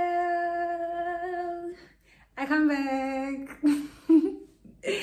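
A woman's voice holding long sung notes with no words: one steady note for about two seconds, then after a short pause a lower, shorter note, followed by a couple of brief vocal sounds near the end.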